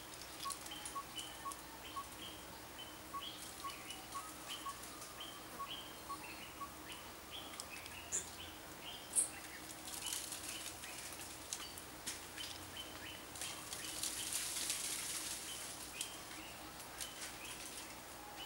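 Forest ambience: a small animal's short chirping call repeated about two to three times a second, fading out after about seven seconds, over crackling and rustling of dry leaves and twigs that grows louder in the second half.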